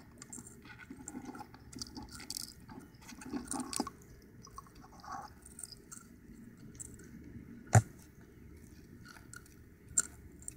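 Ecuadorian land hermit crab shifting between two seashells during a shell change: a run of small scrapes and clicks of shell and legs against shell, with one sharp louder click about three quarters of the way through and another near the end.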